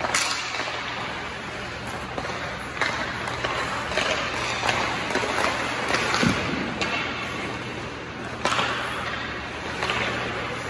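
Ice hockey practice: skate blades scraping the ice, broken by sharp clacks of sticks hitting pucks during shots, about seven over the stretch, the loudest about six seconds in.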